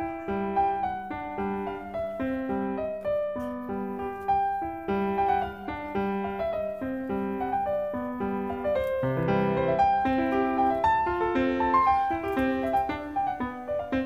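Background music: a piano melody with accompaniment, moving in a steady run of notes.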